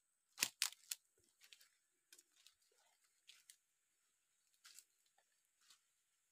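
Footsteps crunching on dry leaf litter and twigs: three sharp crackles close together in the first second, then fainter, scattered crackles.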